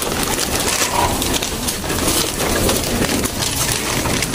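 Racing pigeons moving about and flapping in a wire-mesh loft, with dense rustling and scattered light taps and clicks.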